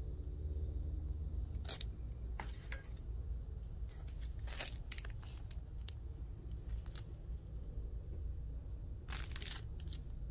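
Clear plastic comic book sleeves crinkling and rustling as they are handled, in several short rustles, with a cluster around the middle and the loudest near the end, over a steady low hum.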